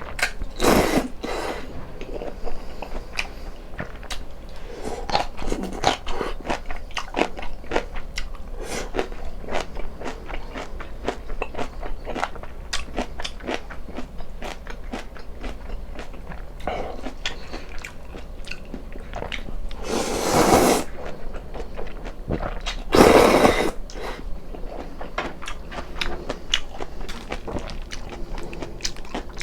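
Close-miked eating: steady chewing and biting with many small smacks and clicks, and two louder noisy stretches of about a second each in the second half.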